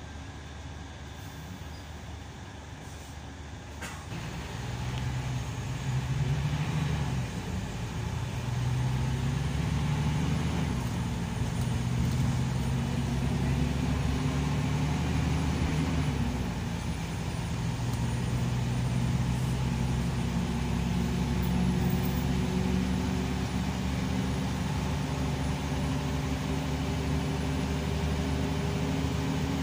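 Scania K340EB coach's diesel engine heard from inside the passenger cabin, with road noise. It runs quietly for the first few seconds, then pulls harder and gets louder, its pitch climbing and dropping back at gear changes before settling into a steady cruise.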